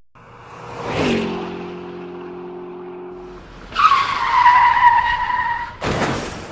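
Sound effects: a rising whoosh about a second in settles into a steady low hum, then a high squeal that dips slightly in pitch, then a sudden noisy burst near the end that fades away.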